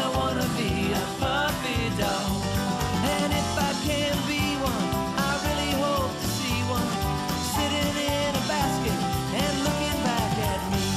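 Background music: an upbeat country-rock song in an instrumental passage, with a steady beat and a gliding lead melody.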